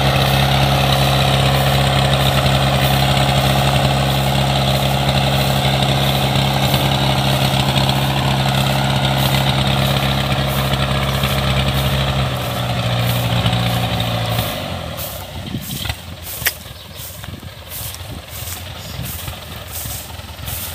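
Kubota combine harvester's diesel engine running steadily. About twelve seconds in its note shifts, and a couple of seconds later it drops away sharply, leaving a much quieter background with a single sharp click.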